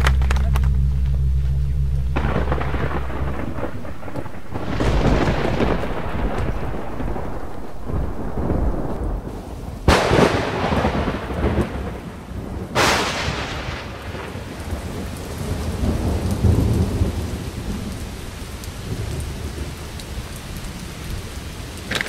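Night thunderstorm: rolling thunder with two sharp claps about three seconds apart near the middle, over steady rain. A low steady hum dies away in the first few seconds.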